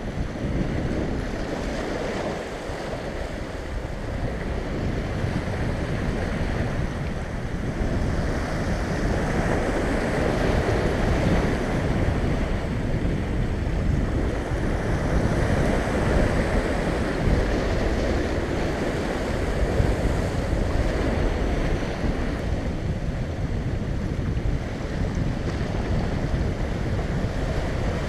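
Sea swell washing and breaking against the rocks directly below, a continuous rushing surf that swells and eases, with wind buffeting the microphone.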